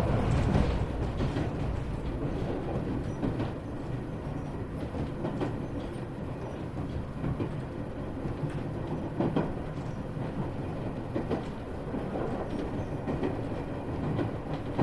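Running noise inside an Iyotetsu 3000-series electric train car: a steady low rumble of wheels on rail with scattered clicks over the rail joints. It eases off just after the start and grows louder again near the end.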